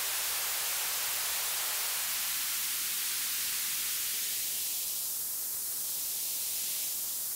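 Steady synthesized noise from a VCV Rack noise generator, sent through a high-pass filter whose cutoff is being turned up, so the low and middle drop away and it thins to a grainy high hiss about five seconds in. This is the high-frequency 'snares' rattle layer of a synthesized snare drum.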